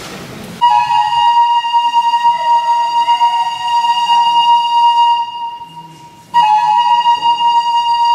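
Pan flute played solo: a long held high note that fades away after about four seconds, then the same note sounded again about a second later and held.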